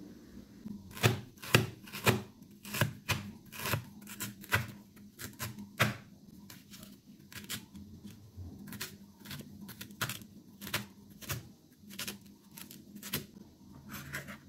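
Chinese cleaver slicing fresh ginger on a plastic cutting board: a run of sharp, irregular knocks of the blade on the board, about two a second, starting about a second in, with a few short pauses.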